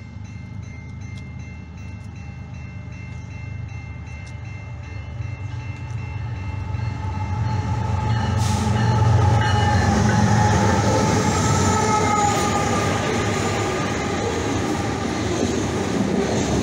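Freight train approaching and passing a level crossing. The crossing's warning bell rings at an even pace while the diesel locomotive's rumble grows louder, and from about halfway through the locomotive sounds its horn for several seconds. Freight cars then roll by with a steady rumble.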